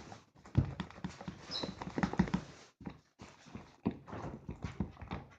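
A large mass of slime being squeezed and handled by hand: a rapid, irregular run of sticky clicks and squelches.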